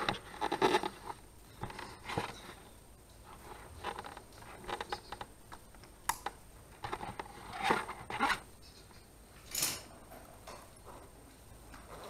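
Rustling and scraping of rope-access gear, harness and clothing handled close to the microphone, in short separate bursts with a few sharp clicks of metal hardware.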